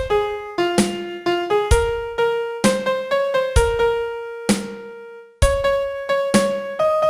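Piano playing a song melody one note at a time, each note struck and left to decay, with a low note under some of them. About four and a half seconds in, one note is held and fades out for nearly a second before the melody picks up again.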